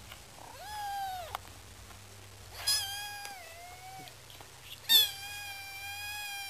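Kitten meowing three times in high-pitched cries, the last one the longest and loudest.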